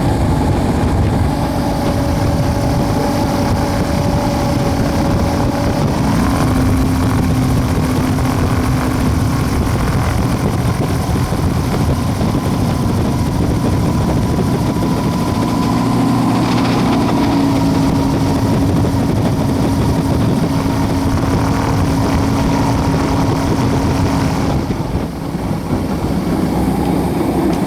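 Light aircraft piston engine and propeller of a homebuilt WAR Corsair running at idle, steady and loud from inside the cockpit, with small drifts in engine speed.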